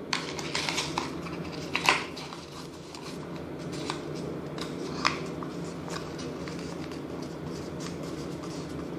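Craft paper rustling and crinkling as it is pressed and tucked into the ends of a cardboard toilet-roll tube, with a few sharper crackles in the first two seconds and occasional single ones later, over a steady low hum.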